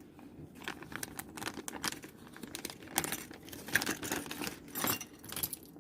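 Sewing machine accessories being handled: irregular rustling of plastic packaging with light clicks and taps of small plastic and metal parts such as bobbins and presser feet.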